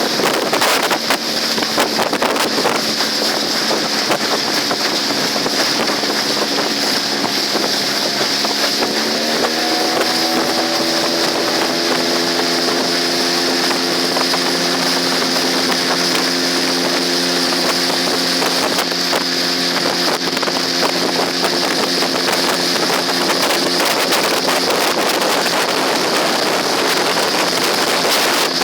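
Parsun T15 two-stroke outboard motor running under way, its note dropping slightly at first, then rising quickly as the throttle is opened about nine seconds in, and holding steady after. Wind rushes on the microphone throughout.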